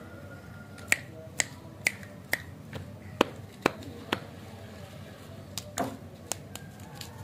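Finger snaps: about eight sharp snaps at an even pace of roughly two a second, then a few scattered clicks later on.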